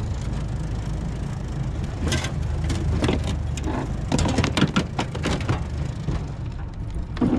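Hooked peacock bass thrashing at the surface beside an aluminium boat: a flurry of sharp, irregular splashes from about two seconds in, over a steady low rumble of wind on the microphone.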